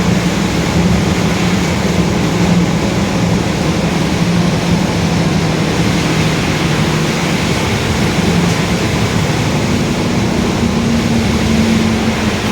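Mercedes-Benz OF-1721 bus running along with its differential droning very loudly: a steady hum over road and engine noise, rising slightly in pitch in the last few seconds as the bus speeds up.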